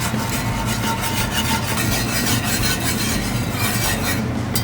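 A whisk scraping around a cast iron skillet in quick, steady strokes, stirring a butter, pepper and cream sauce over medium heat as it thickens.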